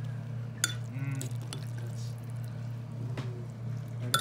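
A metal fork stirring and lifting instant ramen noodles in broth, with wet liquid sounds and two sharp clinks of the fork against the bowl, one under a second in and one near the end. A steady low hum runs underneath.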